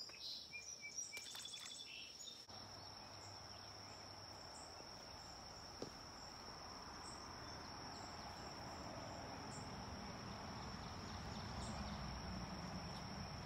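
Insects trilling in a steady, high-pitched chorus, with a rushing noise that comes in about two and a half seconds in and slowly grows louder.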